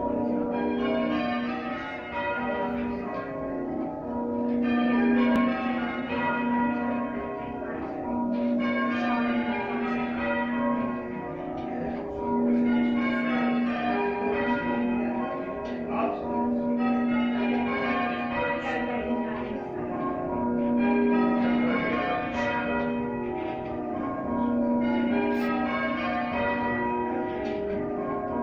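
Church bells ringing in a steady repeating sequence of strikes. The deepest bell comes round about every two and a half seconds.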